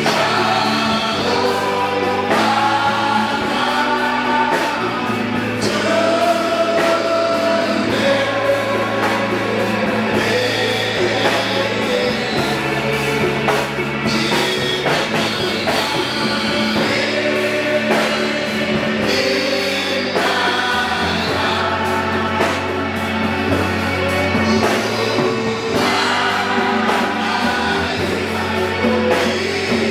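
Congregation singing a gospel worship song together, backed by a band with a steady drum beat and sustained bass notes.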